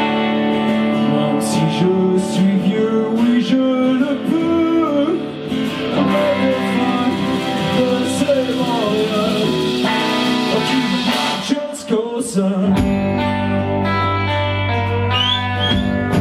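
Live band performing a song on electric and acoustic guitars, drums and bass, with a man's voice singing a wavering melodic line through the middle. The low end drops out for about a second near twelve seconds in, then the full band comes back.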